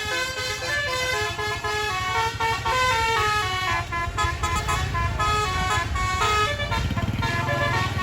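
A tour bus's multi-trumpet basuri telolet horn playing a quick melody, note after note, over the bus engine running. The engine rumble grows louder about seven seconds in.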